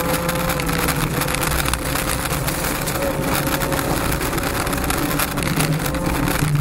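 Honda Civic V1600 rally car heard from inside the cabin, its engine running hard at a nearly steady pitch along a gravel stage, over a constant hiss of gravel and tyre noise. The engine note changes briefly near the end.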